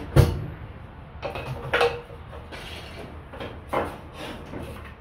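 Pieces of wood and split kindling being handled and set down on a steel workbench: a series of sharp wooden knocks and clatters. The loudest comes just after the start, then more follow about a second and a half, two, and four seconds in.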